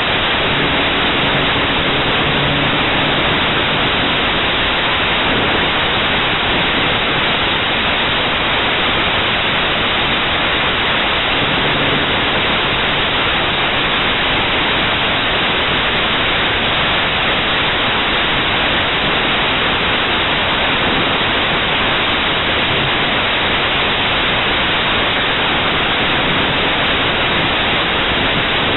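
Steady, loud static hiss from an MD80 DV mini camera's built-in audio recording, even and unchanging, with a faint low hum showing briefly near the start and again about twelve seconds in.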